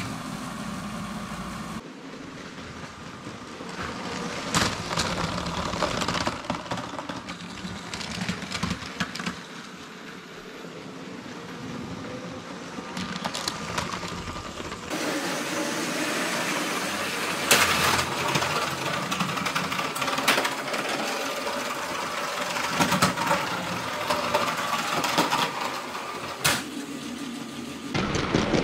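LEGO Power Functions train motor running, with the plastic wheels rattling and clicking over the track joints. The sound changes abruptly a few times.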